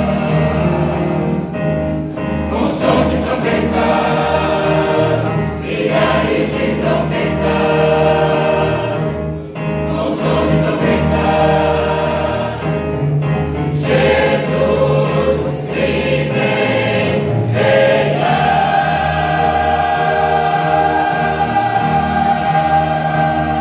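A choir singing a Christian hymn, closing on one long held chord over the last five seconds or so.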